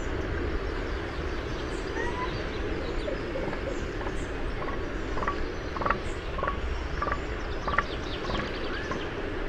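Outdoor ambience: a steady background hiss and low rumble, with short chirping calls repeating about twice a second for a few seconds from about halfway through, and a few scattered whistled notes before them.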